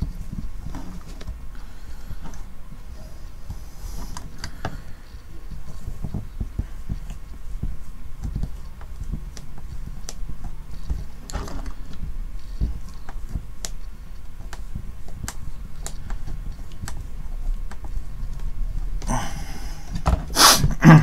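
Hand screwdriver driving a long pointed screw into a box of stiff fibreboard: small irregular clicks and creaks with low handling rumble. Near the end there is a louder scrape and rustle as the box is handled.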